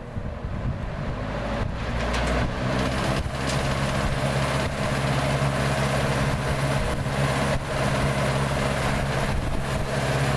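1950s Lasko metal box fan switched on: its electric motor hums and the blades' air rush builds up over the first couple of seconds as it spins up, then it runs steadily.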